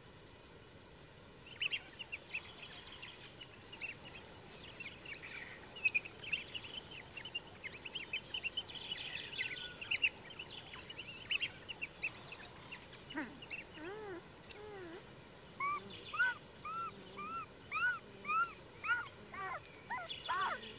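African wild dogs twittering and squeaking: many short, high chirps. In the last third they become a run of evenly spaced, rising-and-falling calls about two a second. These are the bird-like contact calls these dogs make when socialising and playing with pups.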